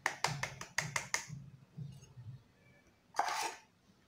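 Sharp taps on an upturned electric chopper bowl, knocking ground dried onion powder out onto a plate: a quick run of about eight taps in the first second or so. A short scraping rustle about three seconds in.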